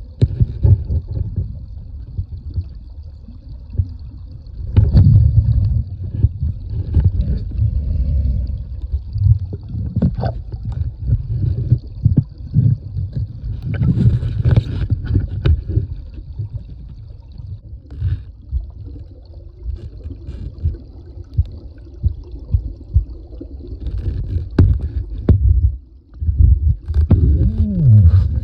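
Creek water sloshing and gurgling close to the microphone, in deep irregular surges, with a few sharp knocks.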